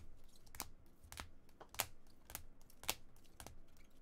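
Trading cards being set down one at a time on a table, a sharp click about every half second.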